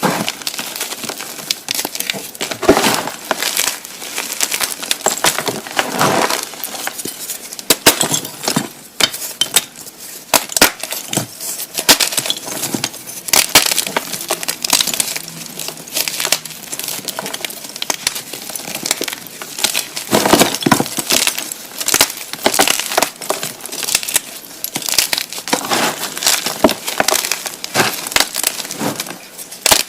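Blocks of gymnastic chalk being crushed and crumbled by hand: dense, irregular crunching and gritty crackling, with sharper snaps as pieces break.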